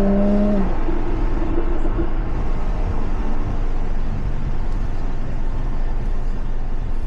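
Jaguar F-Type S's supercharged V6 with its sports exhaust valve open. A held engine note ends within the first second, and the engine then settles into a steady low rumble.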